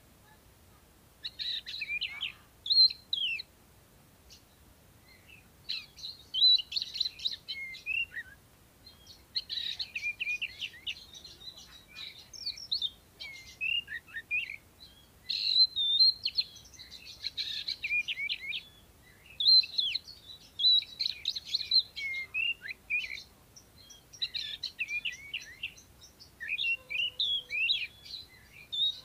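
Oriental magpie-robin singing: quick, varied whistled phrases with fast rising and falling notes, in runs of one to three seconds separated by short pauses.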